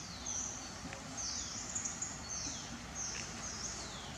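Forest ambience: a high-pitched animal call repeating about every second and a quarter, each a short buzz followed by a falling sweep, over a steady hiss.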